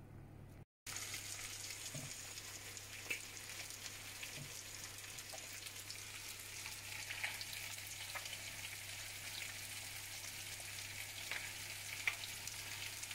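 Eggs and a pan of pyttipanna (diced potato, meat and onion hash) frying in oil: a steady sizzle with scattered small pops, starting just under a second in.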